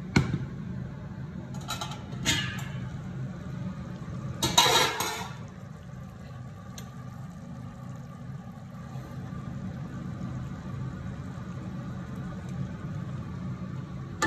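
Stainless steel cooking pot and its metal lid knocking and clattering as the lid is handled and lifted off: a sharp click at the start, two lighter knocks about two seconds in, and the loudest, a rattling clatter of about half a second midway. A steady low hum runs underneath.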